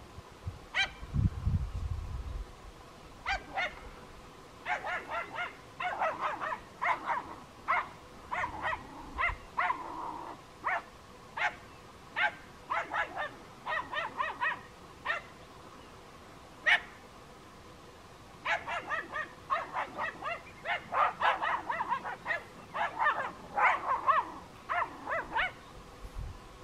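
Small dogs yapping in quick runs of short, sharp barks as they worry a downed hog, with a lull in the middle.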